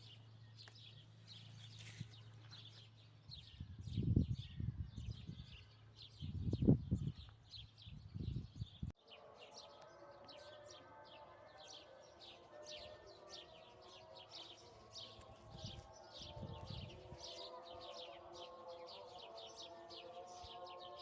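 Small birds chirping rapidly and repeatedly. In the first half, a few loud low rumbles cut in, and after a sudden break about nine seconds in, a layer of steady sustained tones sounds under the chirping.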